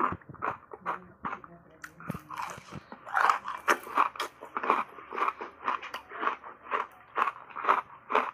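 Crunching and chewing of a bite of frozen matcha-tea ice: a steady run of crisp crunches, about three a second, louder from about three seconds in.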